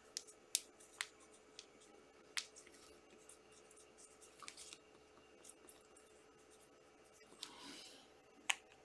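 Trading cards being handled and sorted: a few sparse light clicks and taps, and a brief soft brushing rustle near the end.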